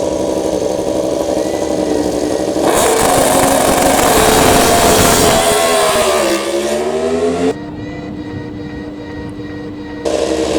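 MotoGP race motorcycle engines revving loudly, with a pitch dip and climb a little past the middle. The sound cuts abruptly several times, dropping to a quieter steady drone about three quarters of the way in before jumping back up.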